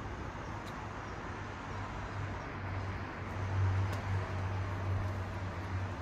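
Steady low outdoor rumble, swelling about three and a half seconds in.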